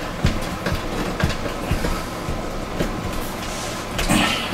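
A screw being driven by hand with a Phillips screwdriver into a door through a hole in a sign: an irregular run of small clicks and creaks as the screwdriver is turned.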